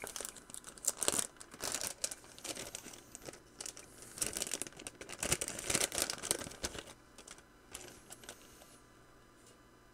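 Plastic parts bag crinkling and rustling as it is handled, in irregular crackles that die away about seven seconds in.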